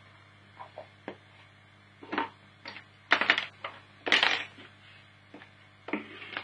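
Irregular clicks, knocks and short clattering noises of small hard objects being handled, the loudest a little after three seconds and around four seconds in, over a steady low hum.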